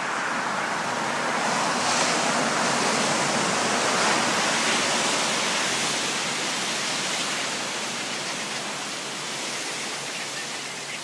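Ocean surf: a wave breaking and washing in as a rushing noise that swells over the first couple of seconds and slowly fades.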